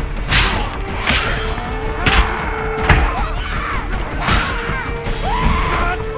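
Action-film fight mix: music with a held drone under a string of added hit and impact sound effects, about six sharp blows roughly a second apart.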